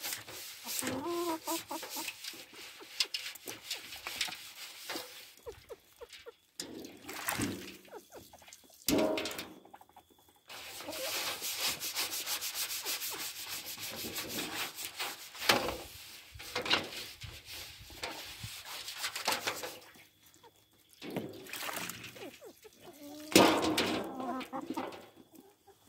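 Scouring sponge scrubbed hard against a round metal poultry water pan in fast, repeated scraping strokes, with a few short clucks from hens. Near the end water from a hose runs into the pan.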